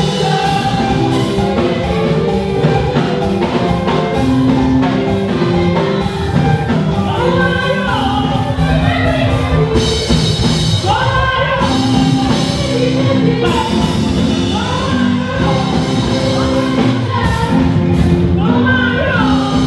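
Church praise music: voices singing over a band with a steady beat.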